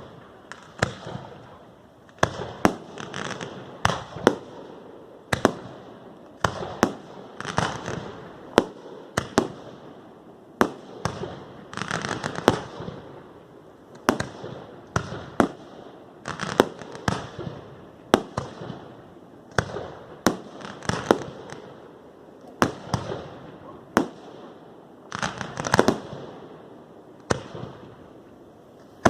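Aerial fireworks display: a steady run of shell bursts, one to two loud bangs a second, each followed by crackling trails.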